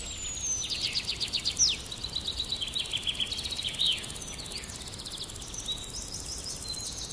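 Wild songbirds singing: quick trills of rapid notes and a few short, sharp descending whistles, over a steady low outdoor background.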